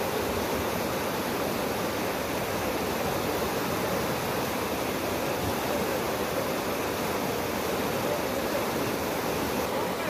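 Flood-swollen mountain stream rushing steadily over rocks.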